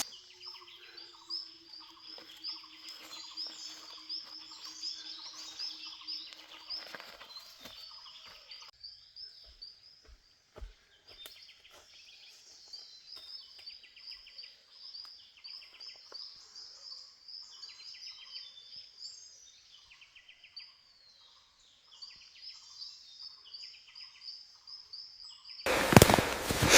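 Birds chirping with many short, high, repeated calls, over faint outdoor background. A faint steady low hum runs through the first seven seconds, and a loud noise starts about a second before the end.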